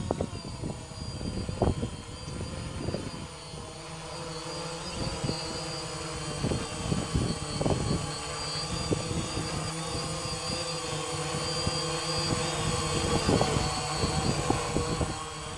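Quadcopter drone's propellers buzzing steadily as it hovers and moves about, growing louder as it comes in close overhead near the end. Low gusts of wind noise rumble on the microphone, mostly in the first few seconds.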